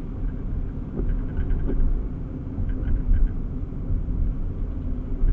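Steady low rumble of heavy engines at a construction site. Faint quick rattling clicks come through twice, about a second in and about three seconds in.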